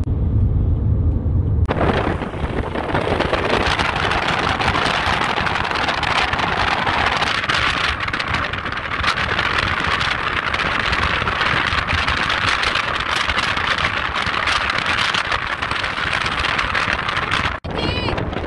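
Wind rushing over the microphone and road noise from a moving car: a low cabin rumble that suddenly turns into a loud, steady rush of wind about two seconds in, as the camera is opened to the outside. The rush drops out briefly near the end.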